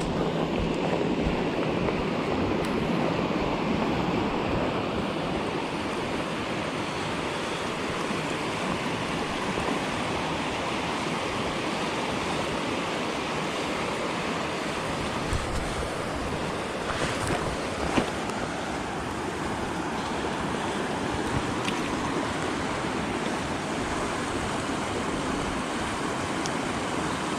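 Swift floodwater rushing as a steady, even noise, with wind on the microphone, and a single sharp click about eighteen seconds in.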